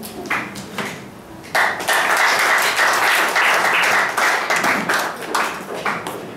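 Audience applauding: a few scattered claps, then steady clapping from about a second and a half in, thinning out near the end.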